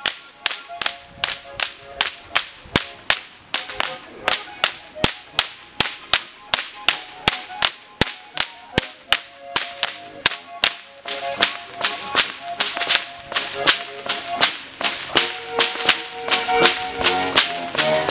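Goaßlschnalzen: several short-handled Bavarian whips cracking together in a steady, even rhythm, about three sharp cracks a second.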